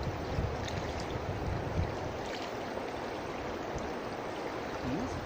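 River water flowing steadily, an even rushing wash with a few faint ticks.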